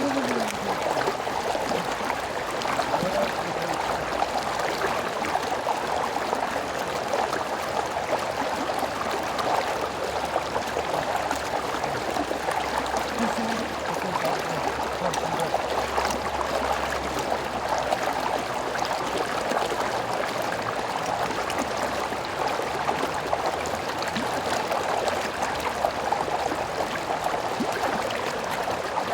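A small stream flowing over stones: a steady rush of running water.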